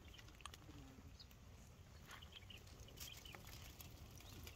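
Near silence: faint outdoor ambience with a low rumble, a few soft clicks and some faint short high chirps.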